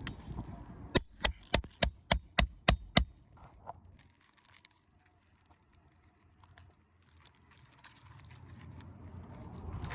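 A hammer striking metal eight times in quick, even succession, about three blows a second, typical of driving a nail puller under a roofing nail head in an asphalt shingle. A few faint scrapes of shingle handling follow.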